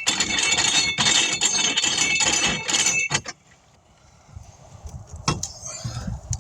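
Metal clinking and scraping with a ringing jangle for about three seconds, then stopping, followed by a few light clicks.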